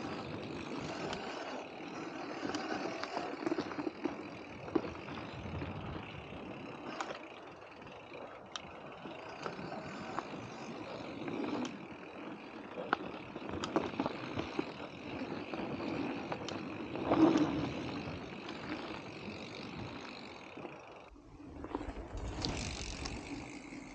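Mountain bike being ridden along a dirt trail: a steady rush of tyres rolling over the ground, with scattered knocks and clatters from the bike over bumps and roots. A brief drop just past the twenty-second mark is followed by a louder stretch.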